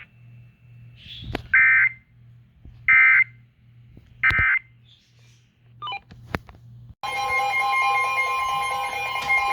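Emergency Alert System tones played over a radio: three short digital header bursts about a second and a half apart, marking the start of a new alert, then from about seven seconds in a loud steady two-tone attention signal.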